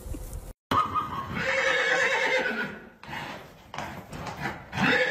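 A horse whinnying: one long, loud neigh lasting about two seconds, followed by shod hooves clip-clopping on a hard stable floor as it trots in.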